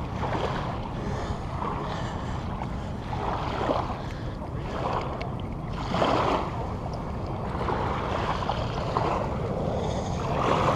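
Wind buffeting the microphone over small waves lapping on a sandy shore, rising and falling about once a second.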